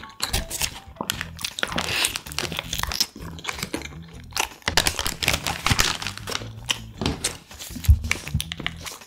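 Paper wrapper of a toast sandwich crinkling and rustling in the hands, close to the microphone, with chewing. Near the end a single thump as the wrapped toast is set down on the table.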